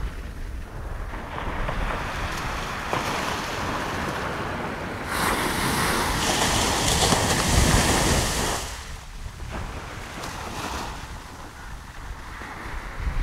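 Sea surf breaking on a sandy shore and washing up the beach. One wave swells loudest from about five seconds in and eases off near the ninth second. Wind buffets the microphone with a low rumble.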